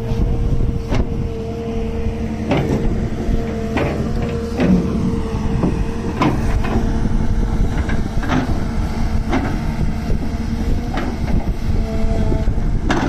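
Wheeled excavator diesel running steadily with a constant hydraulic whine, and sharp metallic knocks every second or two as the bucket works the soil.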